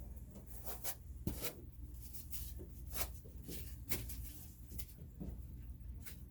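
Hands handling parts and packaging: irregular rustling and light clicks, scattered through, over a low steady hum.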